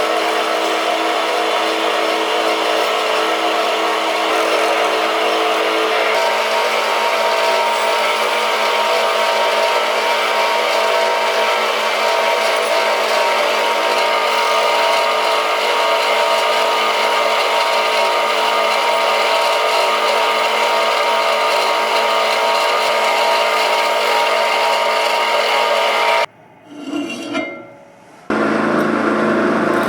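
Power tool running steadily, its pitch shifting slightly about six seconds in, with a brief cut to a quieter sound near the end.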